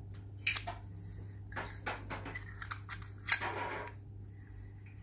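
A paper picture card being slid into a small plastic toy TV: a few sharp plastic clicks and brief rustles, the loudest click about three seconds in.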